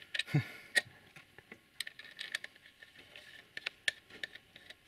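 Scattered light metallic clicks and taps of an open-end wrench on a tractor battery's brass terminal clamps and nuts as they are loosened.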